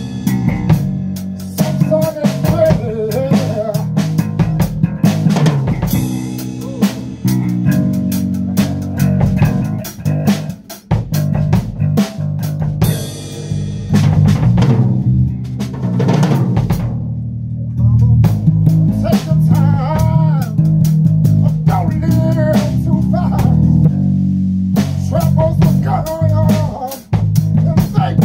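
Drum kit and electric bass guitar playing a groove together, with steady drum strikes over a moving bass line.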